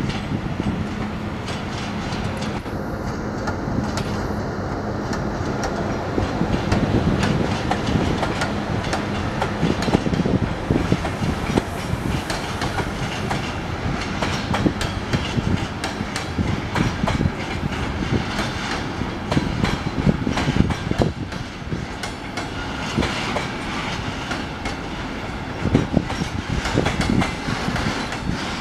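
Freight train wagons rolling past, a mix of container flats, truck-trailer wagons and tank cars, with the wheels knocking over the rail joints in an irregular clickety-clack. A low steady hum runs under it for the first several seconds.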